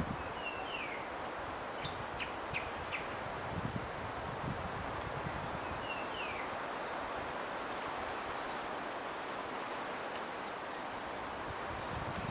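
Steady high-pitched drone of insects, with a bird's short, falling whistled call heard near the start and again in the middle, and a few faint rustles in the brush.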